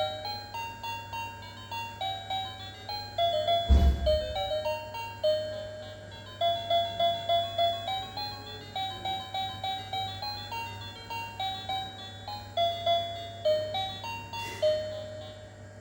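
Electronic toy steering wheel playing a simple beeping tune of short, quick notes, with a single thump about four seconds in.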